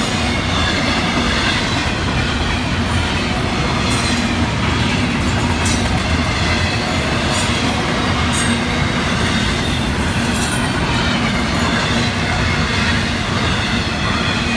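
Double-stack intermodal freight cars rolling past: a steady loud rumble of steel wheels on rail, with a few sharp clicks scattered through it.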